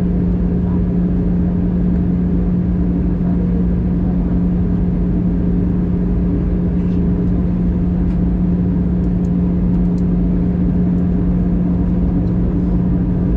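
Airbus A320 cabin noise on the descent, heard by the wing: an even rush of air and engine noise with a steady low drone running through it.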